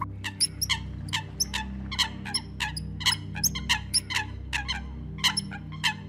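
Eurasian coots calling: a quick, irregular run of short, sharp calls, several a second.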